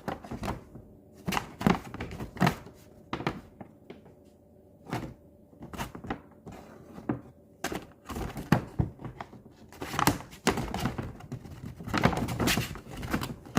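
A series of irregular knocks and thuds, some single and some in quick clusters, with short pauses between them.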